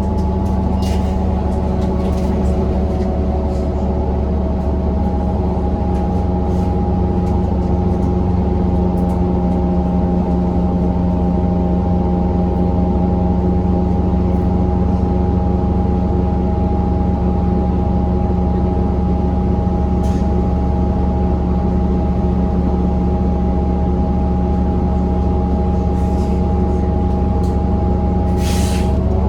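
The diesel engine of a New Flyer XDE40 diesel-electric hybrid bus running at a steady speed, a loud drone with several steady tones. The bus's sound is horrible, downright awful. A short hiss comes near the end.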